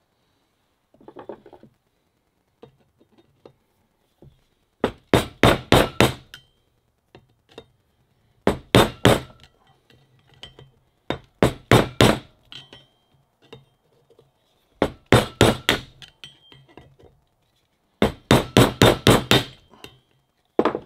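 Claw hammer rapping the end of a screwdriver used as a drift to knock the shaft seal out of a Sherwood G65 raw water pump housing. It comes in five bursts of quick, sharp strikes a few seconds apart.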